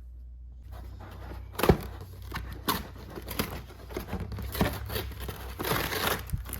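Packaging of a box of coffee capsules being torn open and handled: a series of sharp rips, clicks and crinkling rustles, starting after a brief pause.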